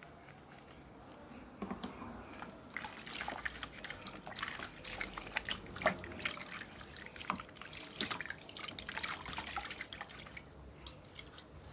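Wet hands rubbing a bar of handmade pink clay and Himalayan salt soap into a bubbly lather: quick, irregular wet crackles and squelches of foam. They start about one and a half seconds in and ease off near the end.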